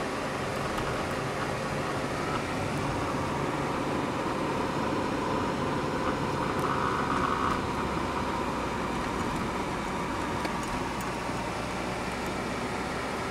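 Citroën car running steadily, its engine hum and road noise heard from inside the cabin.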